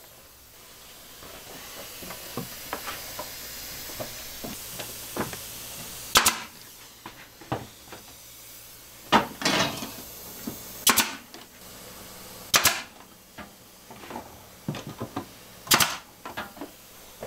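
Pneumatic brad nailer driving brads into wooden trim: five sharp shots a few seconds apart, some followed by a short hiss of air, with lighter clicks of handling between.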